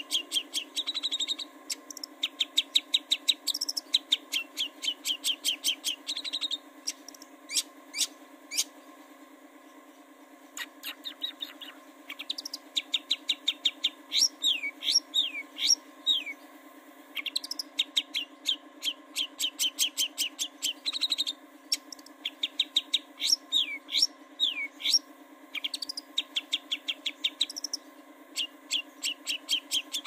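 Long-tailed shrike singing: rapid runs of short, high chattering notes in bursts of a few seconds, some notes sweeping downward, with a pause of a couple of seconds near the middle.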